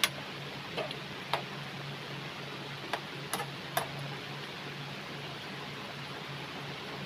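A metal spoon clinking against the side of an aluminium wok, about six light clicks in the first four seconds, while chicken soup is stirred, over a steady background hiss.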